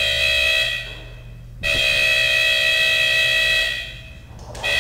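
Electronic alarm buzzer of a model house's burglar alarm sounding in long steady beeps of about two seconds, with about a second's gap between them: the door has been opened without the owner's identification being confirmed.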